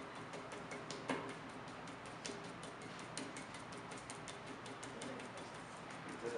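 Rapid, irregular wet clicking and squelching as hands press and centre a block of cream cheese on a spinning potter's wheel, with one louder click about a second in.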